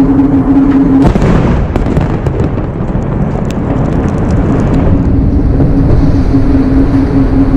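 A large munition explosion: a sudden blast about a second in, followed by several seconds of rumbling. A steady low hum cuts out at the blast and comes back about five seconds in.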